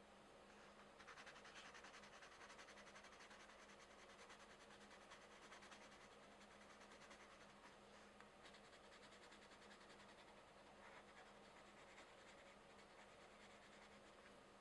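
Faint scratching of coloured pencils shading on paper in rapid strokes, over a low steady hum.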